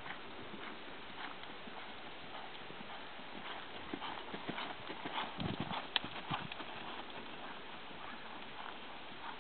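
Hoofbeats of a ridden American Paint Horse mare moving over a sand arena, louder as she passes close by about four to six seconds in, then fading.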